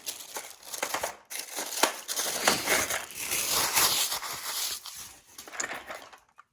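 Plastic packaging crinkling and crackling as it is handled and unwrapped, with many small irregular crackles.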